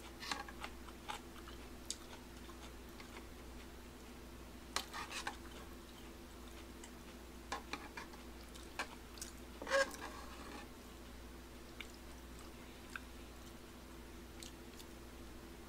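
Close-up eating sounds of tteokbokki: chewing and mouth smacks in short, scattered bursts, with clicks of chopsticks against the pot. The loudest burst comes about ten seconds in, over a faint steady hum.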